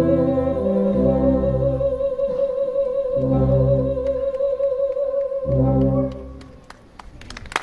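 A soprano holds a long final note with a slow vibrato over sustained low chords from a wind band, a few chords in turn, and both end together about six seconds in. The sound dies away, and a few scattered claps come near the end.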